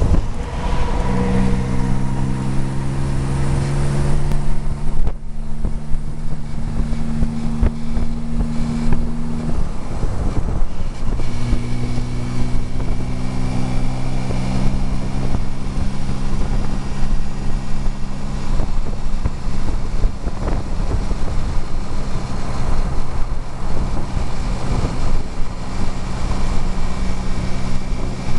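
Classic car's engine running at highway speed, heard from the driver's seat over wind and road noise. The engine note climbs over the first few seconds, breaks briefly about five seconds in and again about ten seconds in, then holds steady.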